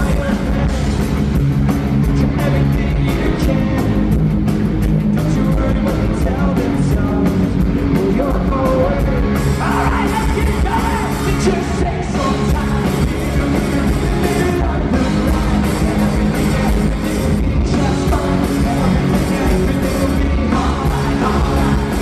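A live rock band playing loud amplified music with electric guitars, drums and singing, heard from within the crowd in front of the stage.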